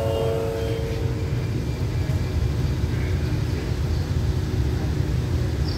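Passenger train at the platform giving a steady low rumble, with the last of a held horn tone fading out about a second in.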